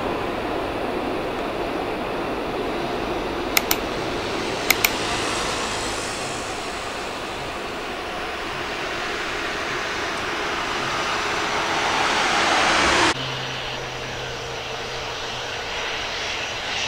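Airbus A330's Rolls-Royce Trent jet engines rushing during its landing rollout, the noise swelling louder for several seconds, with two sharp double ticks near the start. The sound cuts off suddenly about thirteen seconds in and gives way to the quieter, steady hum of a Boeing 737-400 freighter's engines on the runway.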